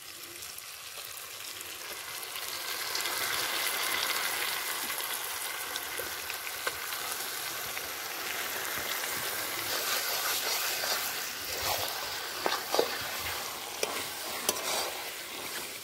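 Marinated chicken pieces sizzling as they go into hot mustard oil and fried spice paste in a metal kadai. The sizzle swells over the first few seconds and then holds steady. In the second half a metal spatula stirs and scrapes through the meat with sharp clinks.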